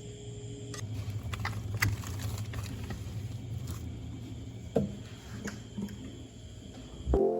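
Steady low background hum with scattered light clicks and taps. Piano music begins near the end.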